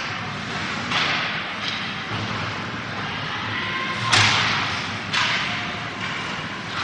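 Ice hockey play echoing in an arena: about four sharp hits and scrapes, each dying away with a hiss. The loudest comes a little past the middle.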